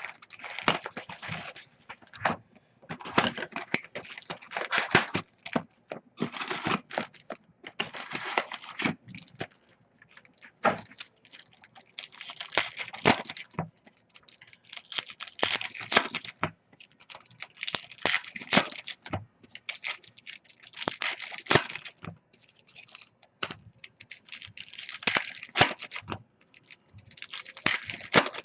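Trading card pack wrappers being torn open and crinkled, in repeated rustling bursts of a second or so, with scattered sharp clicks.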